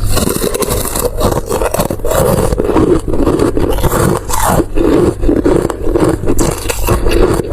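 Close-miked ASMR eating sounds: continuous chewing of a dessert, with dense, rapid clicky and wet mouth noises in uneven pulses.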